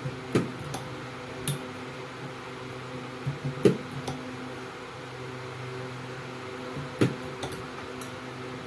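Steady electrical hum, overlaid by irregular sharp clicks and knocks: a loud pair about three and a half seconds in and another sharp one about seven seconds in.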